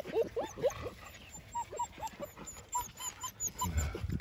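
Six-week-old German Shepherd puppies at play, giving short whines and a string of brief, high-pitched yips and squeaks.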